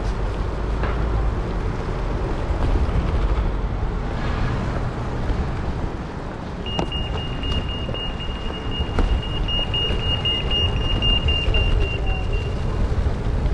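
Steady rumble of city road traffic heard from a bicycle riding among cars. From about halfway through, a thin high-pitched steady whine runs for about six seconds.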